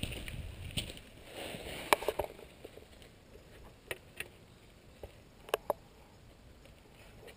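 Low wind rumble on the microphone for the first second or so, then a handful of sharp, irregular clicks and knocks from handling of the hand-held camera, the loudest about two seconds in.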